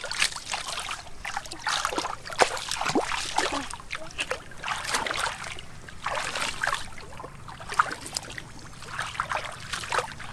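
Bare feet wading through shallow muddy water, with irregular splashes and sloshing as the legs push through it.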